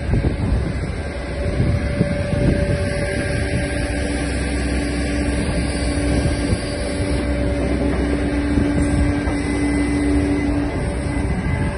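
Takeuchi TB290 excavator's diesel engine running under load while its hydraulics work the boom, arm and bucket, with a steady hydraulic whine that comes in a few seconds in and drops out near the end.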